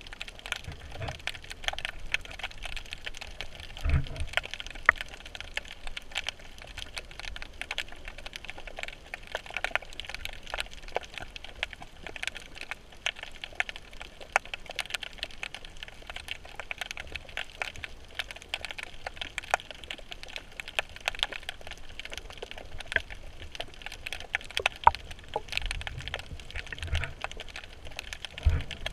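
Underwater crackle: a dense, irregular patter of small clicks, with a few low thumps about four seconds in and near the end.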